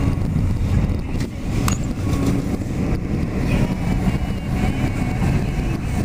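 Steady low rumble of a car running, heard from inside the car, with a few faint clicks.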